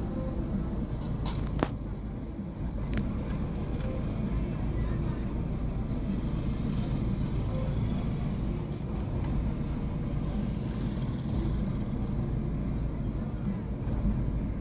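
Chevrolet Aveo's four-cylinder engine idling rough with a steady low running note. Two sharp clicks come in the first few seconds.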